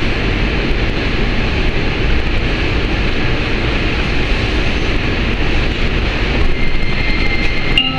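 Sofia Metro train running, heard from inside the car: a steady, loud rumble and rush as it pulls into a station, with a faint high whine joining near the end.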